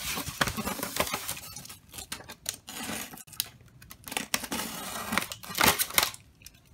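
Irregular scratching, squeaking and crinkling as a wooden stick scrapes and pokes at polystyrene foam packing and the plastic bag around a statue. A couple of louder scrapes come near the end.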